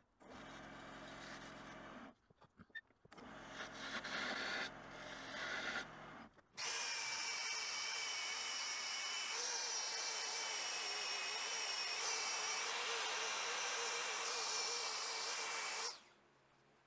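Handheld drill spinning a foam-backed sanding disc against a turned wooden rolling pin on a lathe: a steady high whine over a sanding hiss, lasting about nine seconds from about six seconds in, then cutting off. Before it come a few shorter stretches of machine sound broken by pauses.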